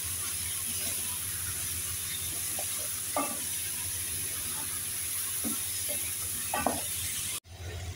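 Chicken pieces, chopped tomato, green pepper and onion sizzling steadily in butter in a pot while being stirred with a wooden spatula. The sizzle cuts off abruptly near the end.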